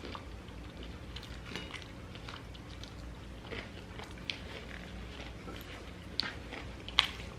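People chewing and biting into pepperoni pizza, with small crunches and mouth clicks; a sharper click about four seconds in and a louder crunch or knock near the end.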